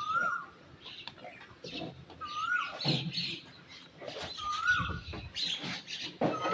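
A bird repeating a short whistled call, a quick rise then a held note, about every two seconds, with scattered rustling and knocking between the calls.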